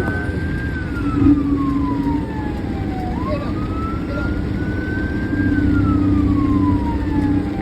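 Fire engine siren wailing in slow rising and falling sweeps, climbing again about three seconds in and once more near the end. A low steady horn tone sounds twice over it, the second time longer and louder, with the truck's engine rumbling underneath.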